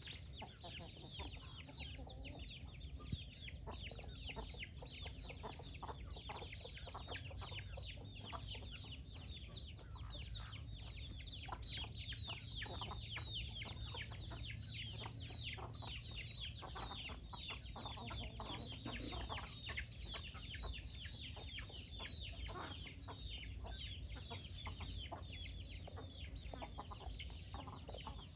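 Flock of chickens with half-grown chicks peeping constantly: many short high calls, each falling in pitch, several a second, over a low steady rumble.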